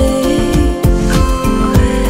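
Background music: a song with a steady beat, bass and held notes.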